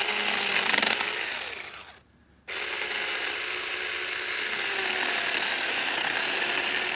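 Saker Mini 20-volt cordless electric chainsaw with a 4-inch bar running and cutting wood, its motor pitch wavering under load. It stops for about half a second about two seconds in, then starts again and runs steadily.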